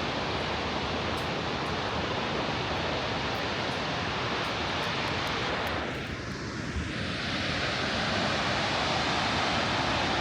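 Steady rushing roar of Shoshone Falls, the Snake River's high waterfall, heavy water crashing down. The roar briefly drops a little about six seconds in.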